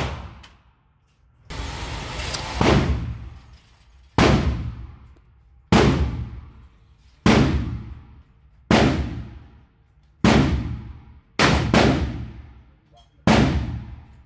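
Emperor Arms Duke Ultra 12-gauge shotgun fired repeatedly, about nine shots at roughly one every one and a half seconds. Each shot rings out in a long echo off the walls of the indoor range.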